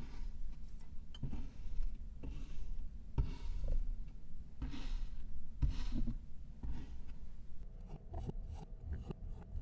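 Knife slicing through kinetic sand, one cut about every second, each with a low knock. Near the end the strokes give way to quicker, lighter clicks.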